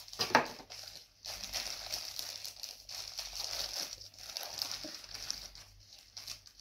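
Clear plastic bag crinkling and rustling as it is handled and pulled from a cardboard box, in uneven runs with short pauses, after a brief louder sound right at the start.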